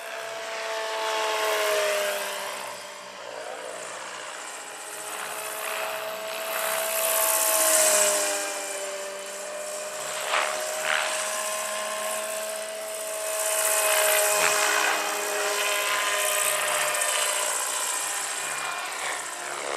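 Large electric RC scale model BO-105 helicopter in flight: a steady whine from its drive, with the rotor blades' whoosh swelling and fading several times as it manoeuvres past. Two short sharp sounds come about halfway through.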